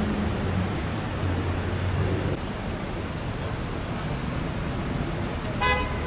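Steady road traffic noise, with a brief car horn toot near the end.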